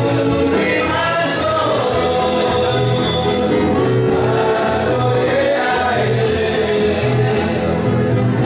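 Several men singing a song together in harmony, backed by a small string band of strummed acoustic guitar and ukulele over a plucked bass line with a steady beat.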